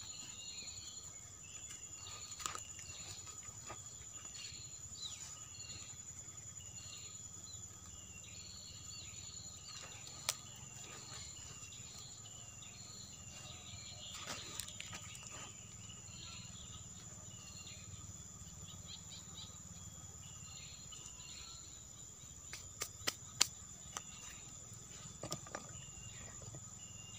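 Steady high-pitched insect drone, with short chirps repeating over it and a faint low hum beneath. Faint scrapes of loose soil being pushed by hand, and a few sharp clicks near the end.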